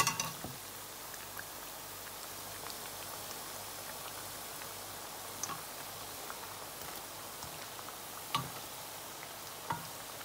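Oil sizzling steadily as bulgur-and-potato croquettes deep-fry, with a few sharp clicks and pops over it, the loudest at the very start.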